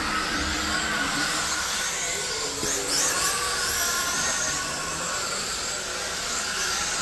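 Radio-controlled dirt oval race cars running laps on a clay track, their motors whining high and rising and falling in pitch as the cars speed up and slow down for the turns.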